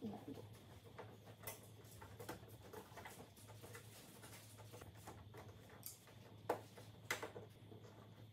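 Faint, scattered clicks and taps of hands handling the parts of a flat-screen TV being reassembled, with two sharper clicks about six and a half and seven seconds in, over a low steady hum.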